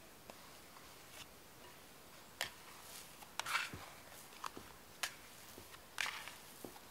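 Hands pressing the gas out of risen bread dough and turning it in a glass bowl: a handful of short, soft squishes and taps spread over the second half.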